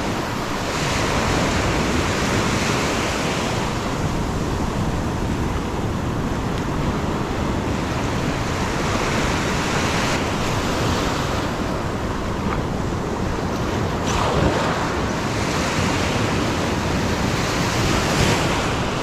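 Sea surf washing against a rocky shore, swelling and easing every few seconds, with wind rumbling on the microphone.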